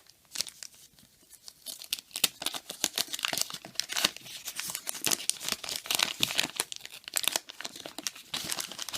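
Paper wrapper of a trading-card pack being torn open and crinkled, a dense run of crackles and rips.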